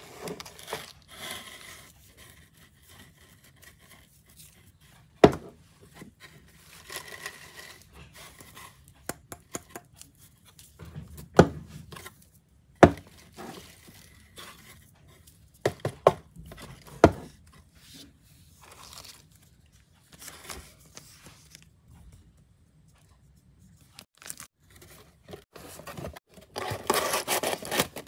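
Crinkle-cut paper shred filler rustling and crinkling in a cardboard box as hands dig through it to lift out bath bombs, with several sharp knocks scattered through and a longer, louder spell of rustling near the end.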